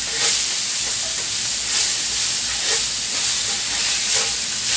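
Chopped onions sizzling in hot pork-steak grease in a frying pan, with a utensil stirring and scraping them about once a second.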